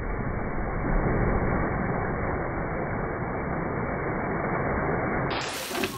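Two dogs splashing into water, slowed down with the footage into a steady, muffled low rush of water noise.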